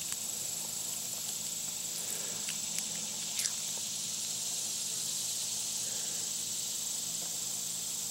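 Crickets chirring in a steady, high-pitched trill, with a few faint clicks in the middle.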